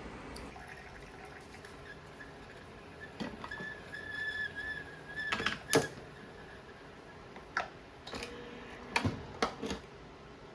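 Sharp knocks and clicks of things being handled in a kitchen, about five of them, with a high steady tone held for about two seconds in the middle.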